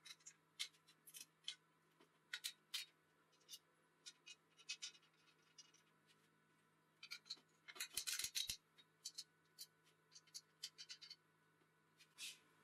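Scattered light metallic clicks and scrapes from a home-made snow blower's metal wheeled frame and its bolts and wing nuts being handled and adjusted, with a quick run of louder clicks about eight seconds in.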